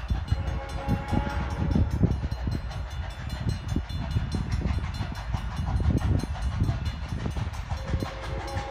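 Steam locomotive working: a low, continuous exhaust rumble with uneven thumps. Its whistle comes in near the end as a chord of steady tones.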